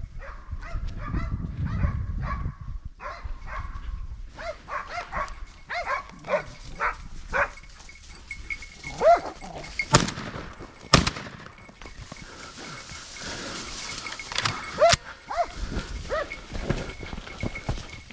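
Hunting dogs barking and baying at a wild boar, with two loud gunshots about a second apart just past the middle and another sharp crack a few seconds later.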